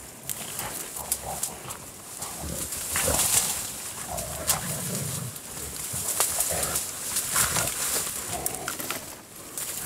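Pig-hunting dogs scuffling with a bailed wild boar in thick cane: irregular rustling and crackling of stalks with a few short animal cries and growls.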